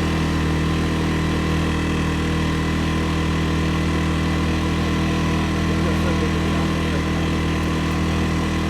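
CFMoto CF600 ATV engine running at a steady, even speed while riding along the trail.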